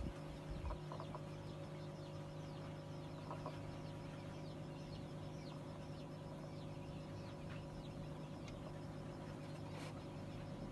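Vorwerk chickens in a pen making faint clucks, with many short, high, falling chirps throughout. A steady low hum runs underneath, with a few soft knocks in the first second.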